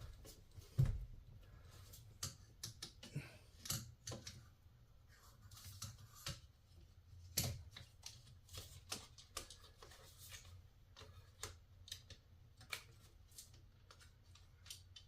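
Faint, irregular light clicks and taps as the insect screen is fitted back into the RV vent window frame.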